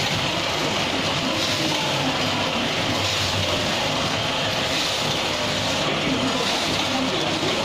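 Automatic sugar packing machine running, a steady mechanical noise that holds at an even level throughout.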